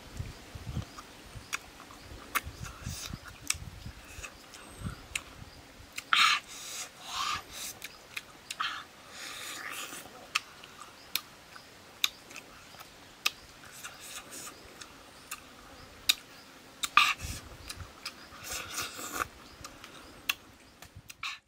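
A person eating grilled fish with the fingers, heard close up: chewing, lip smacks and sharp wet clicks every second or so, with a few short hissy sucking or tearing sounds.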